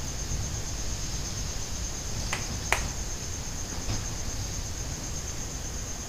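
A few light clicks of a small laptop's plastic case being handled and turned over: two sharp ones about two and a half seconds in and a fainter one near four seconds. A steady, high-pitched, slightly pulsing trill runs underneath.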